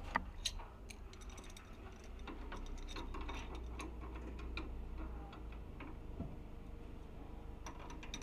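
Irregular light clicks and taps of hands working on an air conditioner's pipework and insulation where it passes through a wall, the sharpest two just after the start, over a low steady rumble.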